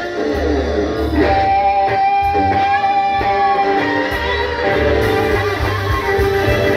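Live blues band playing: several electric guitars over bass guitar and drums. About a second in, one high note is held for about three seconds.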